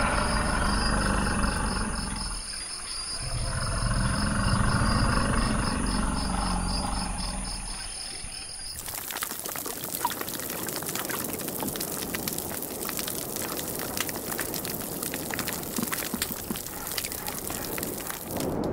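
Field recordings of natural soundscapes. About nine seconds in, a low, rumbling outdoor ambience cuts abruptly to a dense, crackling hiss full of fine clicks.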